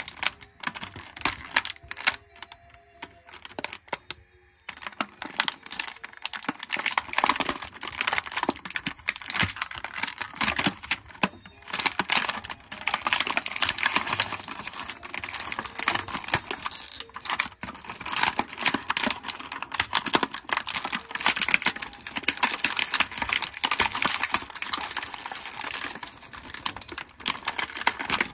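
Clear plastic toy packaging being handled: a tray and bag crinkling and clicking densely as an action figure is worked free. Sparse at first, busier from about five seconds in.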